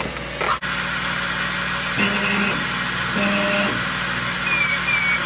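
CO2 laser engraver with a rotary attachment cutting a small test square into a wooden rolling pin. A steady hiss runs throughout, with motor whine in two short runs about a second apart as the head and rotary move, and three short falling chirps near the end.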